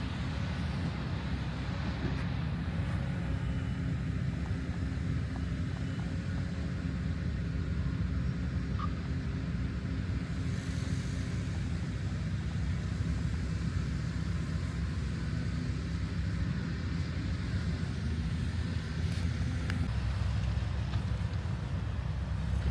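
Steady low rumble of a running vehicle engine, its note shifting about twenty seconds in.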